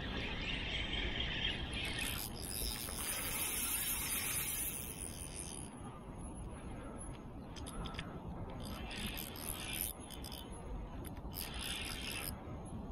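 Handling noise from a spinning reel being worked in the hands close to the microphone: rustling in several bursts of hiss, with a few sharp clicks about halfway through, over a steady low rumble.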